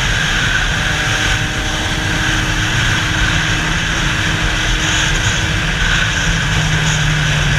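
Motorcycle riding at steady speed: its engine running under loud wind rush on the microphone, the engine note stepping up slightly near the end.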